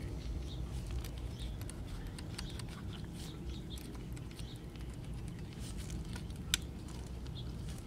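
Emerson All-American Five tube radio playing at a low, fixed level: a steady low hum with scattered faint ticks and crackles. The volume control makes no difference to the level, a clue to a fault in the audio stage.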